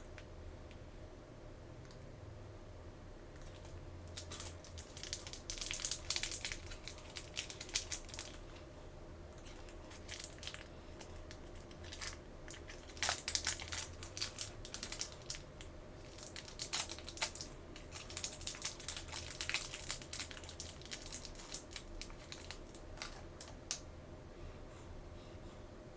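Toy packaging crinkling and tearing by hand in irregular handling bursts, with sharp rustles and crackles that are loudest about a quarter and halfway through, over a faint steady hum.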